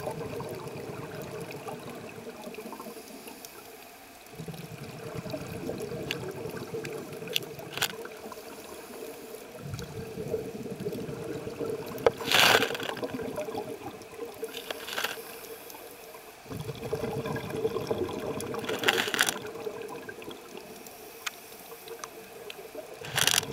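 Scuba diving sounds heard through an underwater camera housing: the diver's exhaled regulator bubbles rumbling and gurgling in long spells of several seconds, alternating with quieter stretches. A few short sharp hisses stand out, the loudest about halfway through and another near the end, over a steady low hum.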